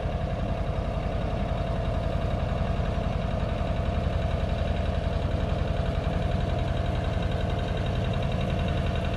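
An engine running steadily at idle, with a rapid, even pulse and a steady tone above it.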